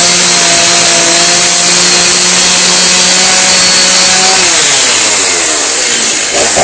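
Power saw motor running at a steady high speed, then released about four and a half seconds in and spinning down in pitch.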